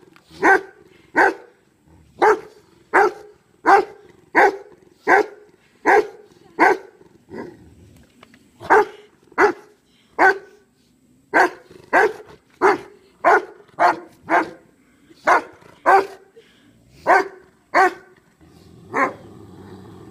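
A large Rottweiler barking over and over at a dead dog, as if trying to wake it: about one bark every 0.7 s, with two short pauses midway.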